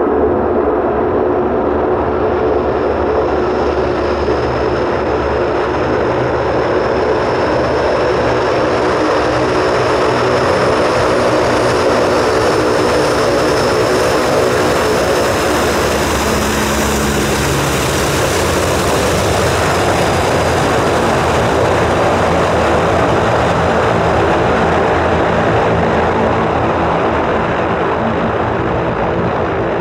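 Antonov An-12's four turboprop engines running loud and steady as the aircraft passes by on the runway, with a high whine over the propeller noise. About halfway through, as it goes past, the whine drops slightly in pitch.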